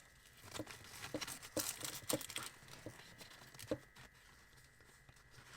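Flash diffuser accessory being handled and fitted onto a speedlite: faint crinkling and small clicks, most of them in the first two seconds or so, with one more click about halfway through.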